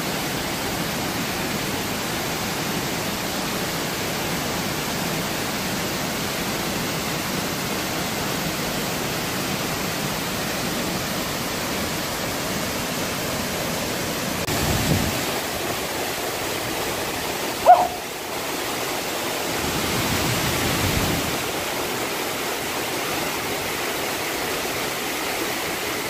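A tall waterfall falling in many thin curtains down a rock cliff into a pool, a steady rushing hiss of falling water. A short, sharp sound cuts in briefly about two-thirds of the way through.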